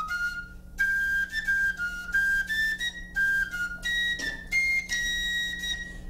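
A wooden fife playing a solo melody of short, stepping high notes, with a brief break about a second in and a long held note near the end.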